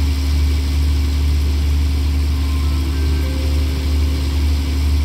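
Steady low rumble of a diesel express train idling at a standstill. Its engines run evenly, with no rise or fall.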